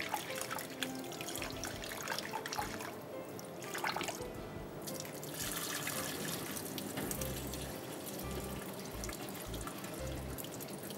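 Water running from a kitchen tap into a glass bowl of rice and splashing into a stainless steel sink as the rice is rinsed and the washing water drained off. The water sound thins briefly a few seconds in. Background music plays underneath.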